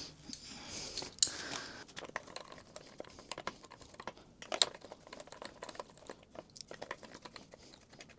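A scatter of light, irregular clicks and crinkles, with a brief rustle in the first two seconds.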